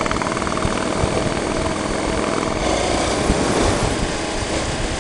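Motorcycle riding at road speed: steady engine throb mixed with wind and road noise.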